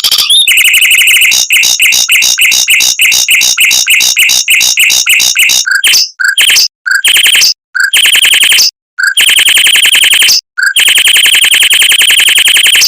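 Mockingbird singing a fast roll: a rapid string of repeated sharp, high notes at about six a second. After about six seconds it switches to several dense, buzzy trilled phrases with brief pauses between them, each longer than the last.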